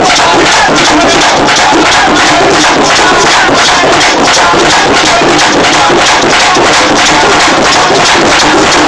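Drums played for Santa Bárbara in a fast, steady rhythm of strokes, loud and continuous.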